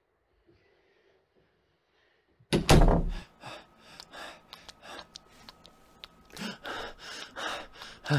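Near silence, then a sudden loud bang about two and a half seconds in, followed by a run of short, breathy gasps.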